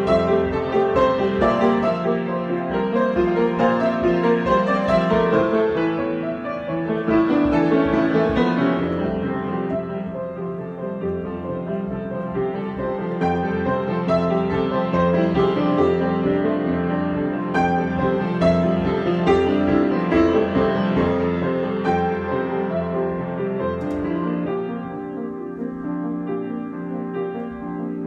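Piano played in an improvisation, with many sustained notes and chords, growing somewhat softer near the end.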